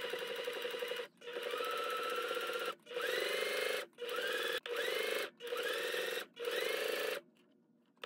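Electric sewing machine stitching in about seven short runs, broken by brief stops. Each run starts with a rising whine as the motor gets up to speed. Near the end it stops for a moment before starting again.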